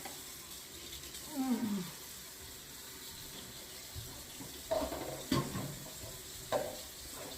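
Tap water running steadily in the background. A short falling whine-like sound comes about a second and a half in, and three sharp knocks fall in the second half.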